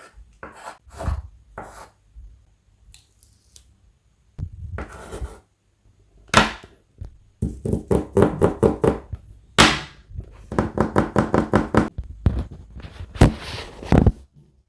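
Close-up handling sounds of paper crafting: crisp taps, rustles and scrapes of paper, stickers and small tools on a desk, with two quick runs of rapid crisp strokes near the middle and later on.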